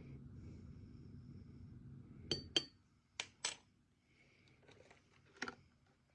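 A low steady hum that stops about two and a half seconds in, with sharp clinks of dishes or utensils, about five of them, most of them after the hum stops.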